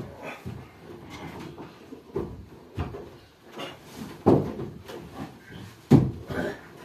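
Wooden knocks and bumps as a carved wooden altar frame is shifted and fitted into place, with a sharp knock about four seconds in and the loudest near the end.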